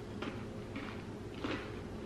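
Crunching as a yogurt-coated pretzel is chewed: three crisp crunches about half a second apart, the last the loudest.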